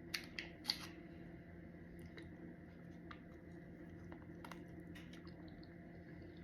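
Person biting into and chewing a frozen cookie dough bar with a hardened chocolate top: a few sharp crunches in the first second, then faint chewing, over a low steady hum.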